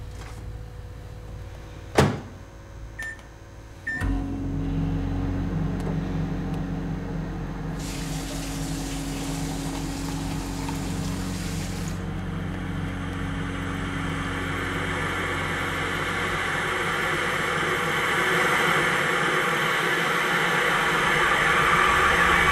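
A sharp click, then two short beeps from a microwave oven's keypad, and the microwave starts with a steady hum. Over the hum a hiss builds slowly toward the end.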